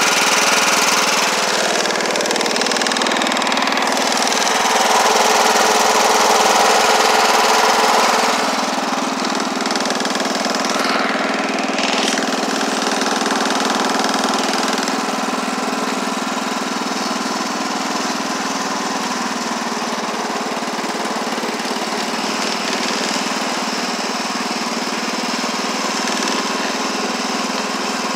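Wheel Horse garden tractor engine running steadily, a little louder for a few seconds about four to eight seconds in, then settling back to an even run.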